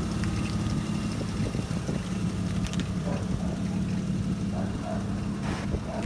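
BMW E36's engine idling with a steady low rumble.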